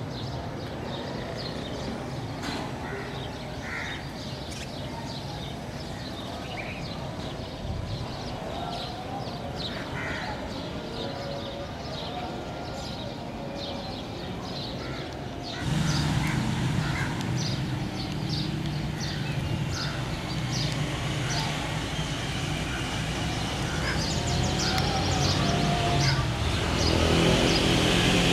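Crows cawing and small birds chirping. About halfway through, a low, steady diesel engine rumble comes in and grows louder toward the end: a diesel-electric locomotive drawing near with its passenger train.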